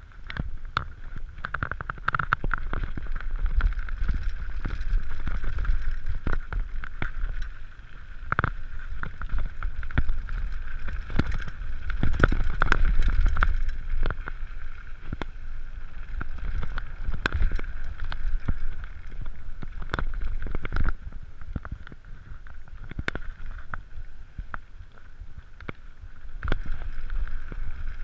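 Mountain bike riding fast down a gravel dirt trail: wind buffeting the microphone and tyres rumbling over the ground, with frequent sharp clicks and knocks as the bike rattles over bumps and a steady high hum underneath.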